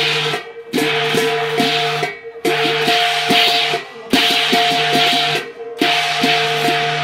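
Qilin dance percussion band of drum, cymbals and gong playing a repeating rhythmic pattern. The cymbal wash and ringing gong tones are broken by short breaks about every one and a half seconds.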